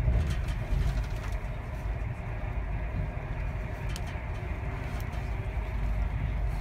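Steady low rumble of a moving train heard from inside the passenger carriage, with a couple of faint clicks about two-thirds of the way through.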